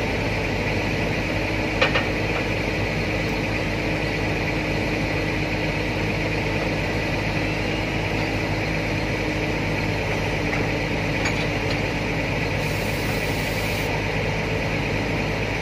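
Diesel engine of heavy lifting machinery idling steadily, with one sharp knock about two seconds in.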